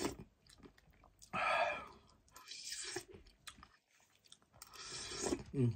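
A man eating soup and rice from a spoon: chewing and mouth noises in three or four short bursts, with a short low hum near the end.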